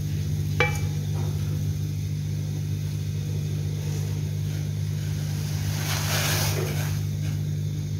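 Vermicelli boiling hard in a steel saucepan of water on a gas stove: a steady low rumble of the rolling boil and burner. There is a sharp click about half a second in, and a swishing splash about six seconds in as a silicone spatula stirs the pot.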